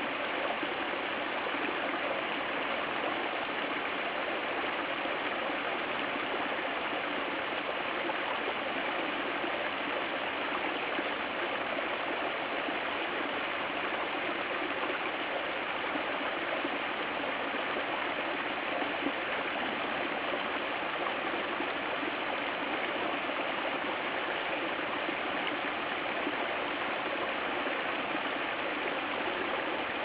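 Small brook waterfall spilling over rocks and splashing into a shallow pool: a steady, even rush of falling water.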